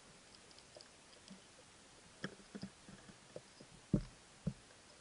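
Faint, irregular underwater clicks and soft knocks picked up by an underwater camera, a few scattered ones in the first two seconds, then a denser run with the loudest knock about four seconds in.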